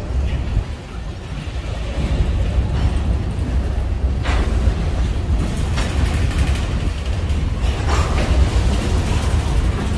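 Empty BNSF covered hopper cars of a grain train rolling past on the rails: a steady low rumble with wheel and car clatter, and brief louder, brighter spells about four and eight seconds in.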